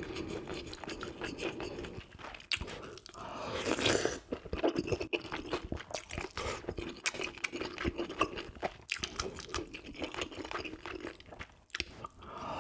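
Close-miked eating: a man chewing with crunchy bites, and a wooden spoon scooping from a pot of tofu stew.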